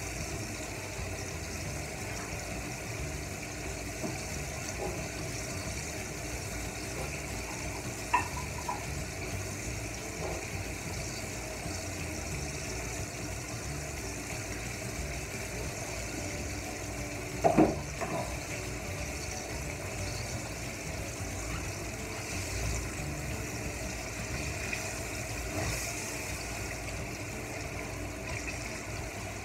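Egg-battered chicken feet deep-frying in hot oil in a pan, with a steady sizzle as they cook toward golden and crispy. Two brief sharp knocks stand out, about 8 seconds and 17 seconds in.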